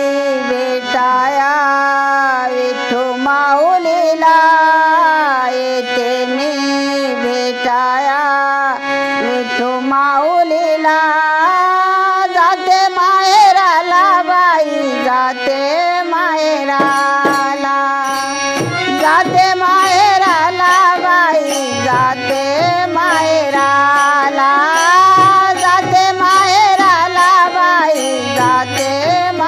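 Devotional bhajan accompaniment: a harmonium plays the melody over a held drone, with tabla keeping rhythm and its deep bass-drum strokes coming in more strongly about two-thirds of the way through.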